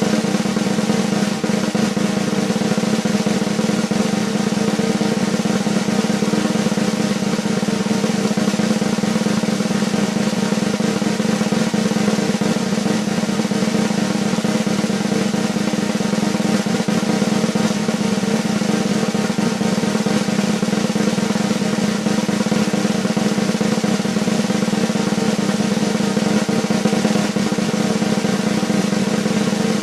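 Snare drum roll: a continuous, steady, unbroken roll.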